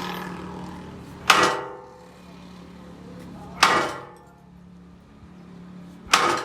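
Three hammer blows on steel, evenly spaced about two and a half seconds apart, each leaving a short metallic ring.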